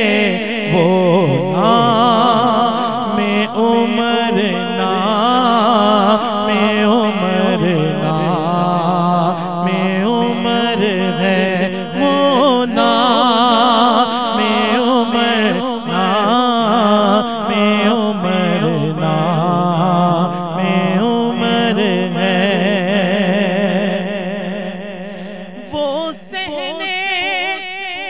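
A man singing an Urdu manqabat solo into a microphone: a long, drawn-out melismatic passage with heavy vibrato, over a steady low held tone. The voice fades briefly near the end, then comes back in.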